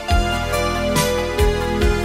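Background music: sustained keyboard chords over a steady beat of kick drum and cymbal.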